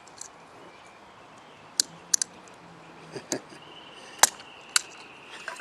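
Small parts and a tool clicking and tapping against an FN PS90 rifle's receiver as a stiff magazine release spring and plunger are worked into place: about eight short, sharp clicks at uneven intervals.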